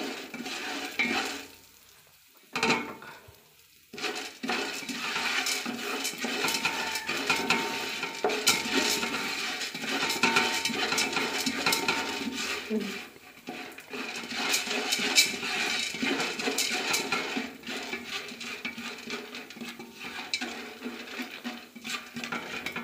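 Wooden spatula stirring unpopped popcorn kernels in hot oil in a heavy-bottomed biryani pot on high flame: the hard kernels rattle and scrape across the pan. There are two short pauses in the first few seconds.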